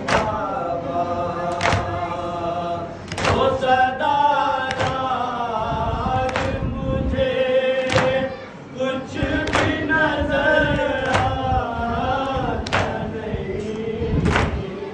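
Men chanting a nauha, a Shia Muharram lament, led by a reciter on a microphone. The mourners strike their chests in unison (matam), a sharp slap about every one and a half seconds in time with the chant.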